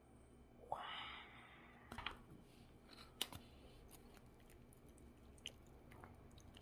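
Near silence with a brief rustle about a second in and a few faint clicks and taps, small handling sounds.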